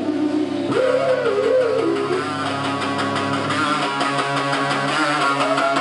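Live rock band playing: electric guitars, bass and drums. A long, wavering held note comes in about a second in, and the drum hits come steadily through the second half.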